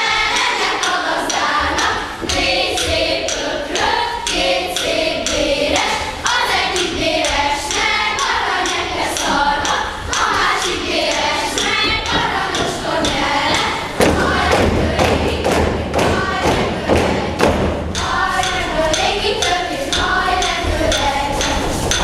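A group of voices chanting a Hungarian regös song, over repeated thumps on the wooden stage floor from the performers' staffs and feet. About two-thirds of the way through, the thumping gets denser and heavier for a few seconds before the chanting comes back to the fore.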